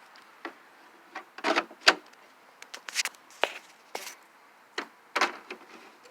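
Irregular clicks and knocks from a Hoover Caddy Vac upright vacuum being handled with its motor off, about a dozen short strikes spread unevenly.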